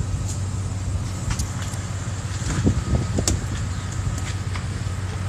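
Truck engine idling steadily with a low hum, and a few short clicks over it.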